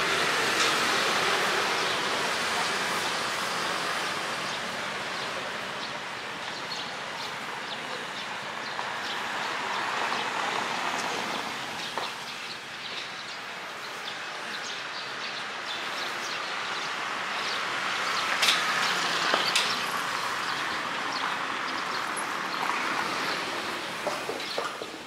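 City street ambience: a steady wash of traffic noise that swells and fades as vehicles pass, with a few sharp clicks or knocks about three quarters of the way through.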